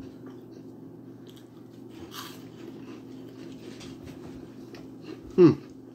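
A person crunching and chewing a cheese puff: a few crisp crunches, the clearest about two seconds in and again near four seconds, over a steady low hum.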